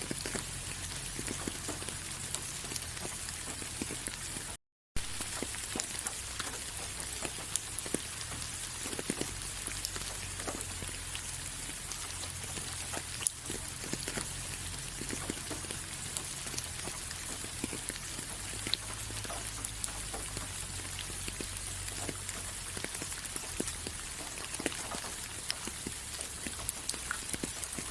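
Steady rain falling on a surface: a continuous hiss with many single drops ticking and pattering through it. The sound drops out for a split second about four and a half seconds in.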